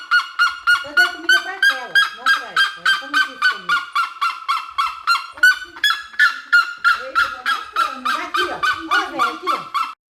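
Large birds calling loudly: a rapid, honking call repeated about three to four times a second at a steady pitch, with a lower, wavering second voice joining in. The calling stops abruptly just before the end.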